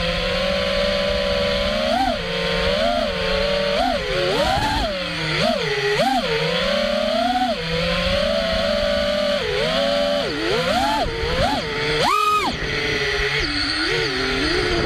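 FPV racing quadcopter's brushless motors and propellers whining, heard from the drone's onboard camera, the pitch swooping up and down with every throttle change. About twelve seconds in the pitch jumps sharply as the throttle is punched for a climb, then drops back.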